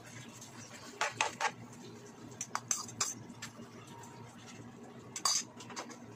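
A bowl and a wooden spatula knocking and clinking against a frying pan on the stove: three quick knocks about a second in, a few more around three seconds, and the loudest knock about five seconds in.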